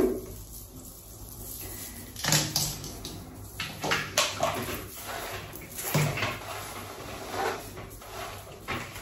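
Hiccups: a series of short, sudden hiccup sounds, the two loudest about two seconds in and about six seconds in, with fainter ones between.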